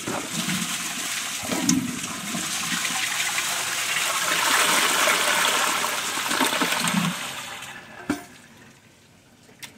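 Kohler Gleam low-flow toilet flushing: water rushing and swirling down the bowl, loudest midway and dying away about eight seconds in. A short sharp knock follows just after.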